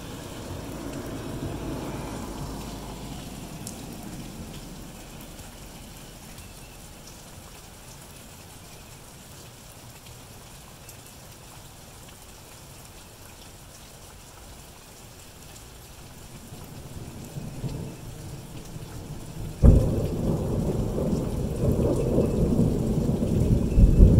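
Steady rain falling, with a low rumble of thunder in the first few seconds. Near the end, thunder builds and then breaks in a sudden loud clap that rolls on as a deep rumble.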